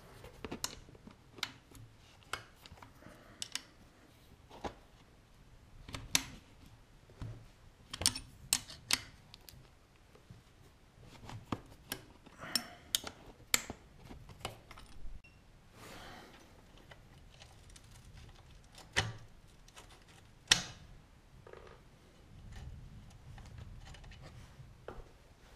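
Irregular clicks and taps of a ring spanner and small metal parts being worked on a pit bike's rear brake master cylinder and pedal linkage, with a few short scrapes; the sharpest click comes about twenty seconds in.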